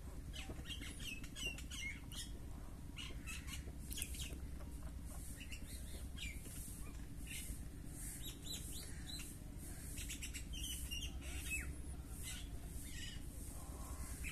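Small birds chirping and calling, many short high chirps scattered throughout, over a low steady rumble.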